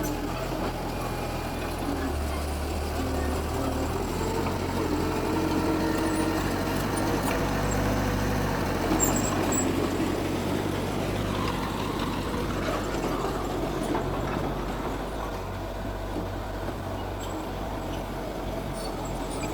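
Diesel engines of earthmoving machinery (dump trucks and a bulldozer) running, with the engine note rising and falling and getting somewhat louder around the middle.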